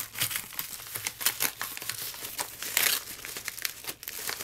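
Padded mailer envelope being torn open and handled by hand: irregular crinkling, rustling and tearing of the paper packaging.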